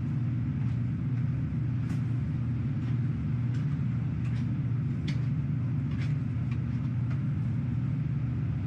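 Steady low machinery hum with a few faint, short clicks scattered through it.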